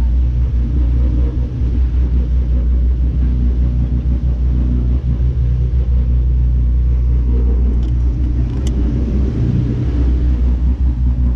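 Boat engine running steadily under way: a constant low drone with a rushing wash of water and wind over it.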